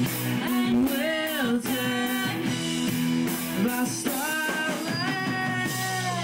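Live rock band playing: electric guitars with a drum kit and cymbals keeping a steady beat, and a wavering melodic lead line over them.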